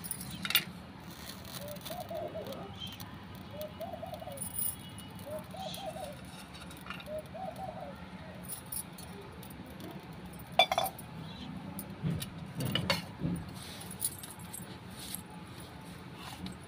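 Light clinks and jingling of bangles and metal puja vessels as things are handled, with a sharp click about ten and a half seconds in and a few knocks a couple of seconds later. A bird calls four times in the background during the first half.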